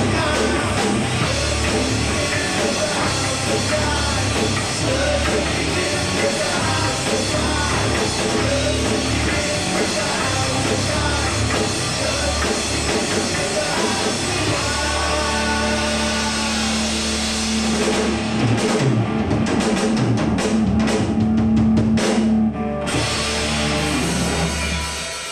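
A live rock band plays: electric guitar, electric bass and drum kit, with singing. From about 18 seconds in, a run of drum hits and cymbal crashes brings the song to its ending, and a last chord rings out and fades near the end.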